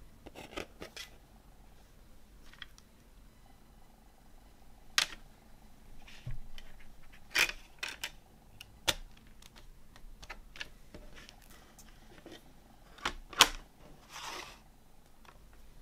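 Clicks and taps of a CD and its hard plastic jewel case being handled: the disc is pressed onto the tray's hub and the case is shut. Sharp, irregular clicks, the loudest pair near the end, followed by a brief rustle.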